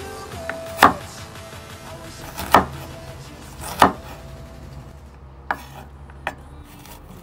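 Kitchen knife chopping carrot on a bamboo cutting board: about five separate knocks of the blade on the board, a second or more apart, the last two fainter.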